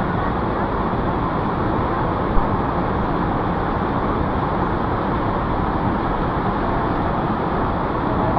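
Steady roar of rushing water from a strong river current and waterfall in a canyon, with a small knock about two and a half seconds in.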